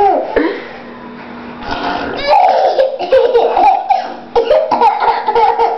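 A toddler laughing in repeated bouts, quieter for a moment early on and picking up again about two seconds in.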